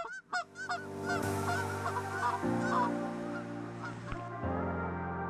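Canada geese honking in a series of short calls, fading out after a few seconds as an ambient music track of held chords comes in and takes over.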